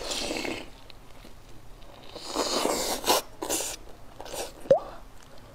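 Biting into and tearing meat from a roasted chicken drumstick, with crunching and chewing in several short noisy bursts, and a brief rising squeak a little before the end.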